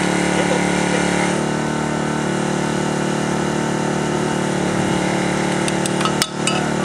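Small engine of a hydraulic rescue-tool power unit running steadily under load, feeding the hose-connected hydraulic cutter as its jaws close on a rusty metal pipe. A few sharp clicks come near the end.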